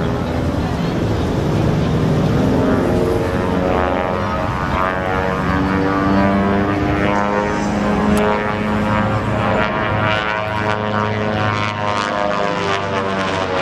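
Twin Pratt & Whitney R-985 Wasp nine-cylinder radial engines of a 1943 Beech 18 running at display power, with propeller drone, as the plane dives and makes a low pass. The engine note shifts in pitch and falls near the end as the plane goes by.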